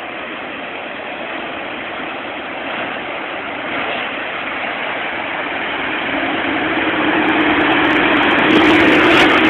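Heavy articulated lorry ploughing through floodwater: a steady rush of spray and its engine grow louder as it approaches and passes close by, with the engine's low hum standing out over the last few seconds.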